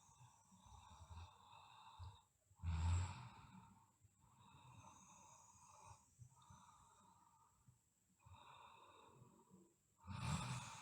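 A sleeping girl snoring: two louder snoring breaths about seven seconds apart, with softer, slightly whistly breaths between them.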